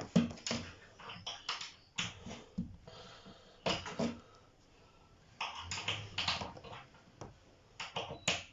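Irregular sharp clicks and knocks of screws and hardware being worked into wardrobe panels by hand, some in quick clusters of two or three.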